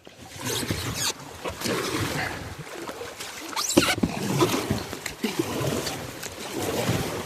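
Canoe paddles dipping and pulling hard through moving water in a shallow channel, an irregular run of splashes with a few sharp knocks.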